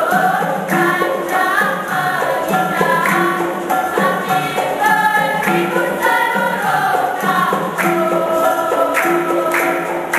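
Music: a group of voices singing one melody together, with sharp percussion strikes accompanying the dance.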